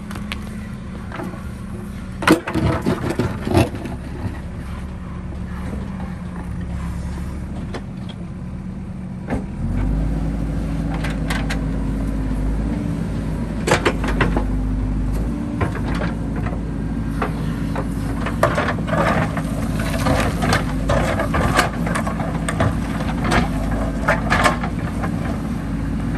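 JCB backhoe loader's diesel engine running steadily, then revving up to a heavier working note about nine seconds in. Scattered sharp clanks and knocks come a couple of seconds in and again through the second half.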